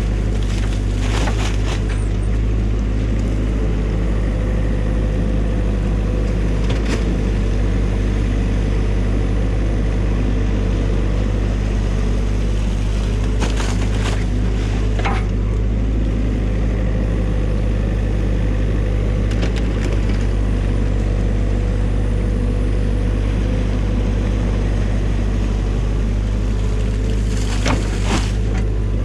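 New Holland mini excavator's diesel engine running steadily under hydraulic load while the bucket digs mud and sticks out of a beaver dam. A few brief knocks and cracks come through over it.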